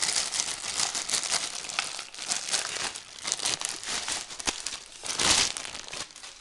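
Packaging crinkling and rustling as an aquarium pump is pulled out of its cardboard box, with a louder rustle about five seconds in.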